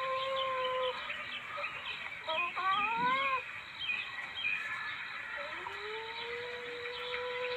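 Long, drawn-out calls of a civet, each held at one steady pitch. One call ends about a second in, a short rising call comes around three seconds, and another long call starts about five and a half seconds in. Short high chirps, from birds or insects, run behind them.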